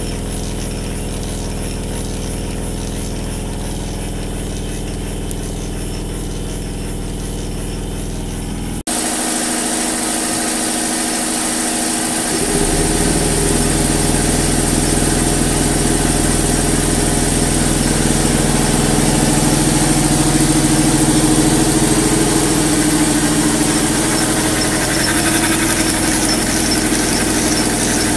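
Model traction steam engine running on compressed air, turning a flat belt that drives an unloaded jack shaft: a steady mechanical running sound with several held tones. The sound changes abruptly about nine seconds in and grows louder about three seconds later.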